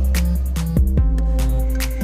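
Background music with a beat: deep bass under held notes, with drum hits at regular intervals.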